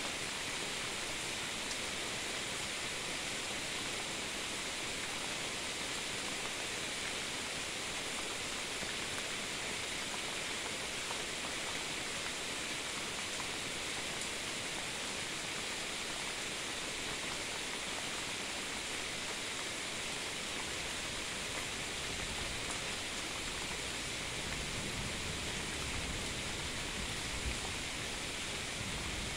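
Steady rain falling during a night thunderstorm, an even hiss, with a low rumble joining in near the end.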